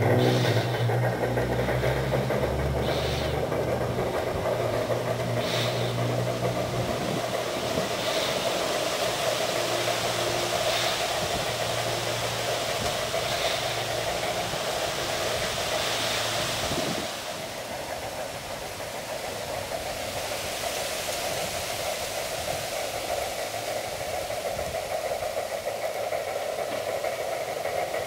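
Bachmann large-scale Shay model locomotive running with its Phoenix 2K2 sound card playing steam-engine sound effects, a steady mechanical hum beneath. The low tones fade and the level drops about 17 seconds in as the train moves away.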